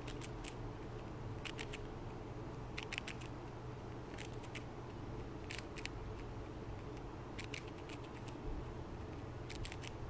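Fox squirrel chewing and crunching a piece of food, small crisp clicks coming in quick clusters of two to four, about every second or two, over a steady low hum.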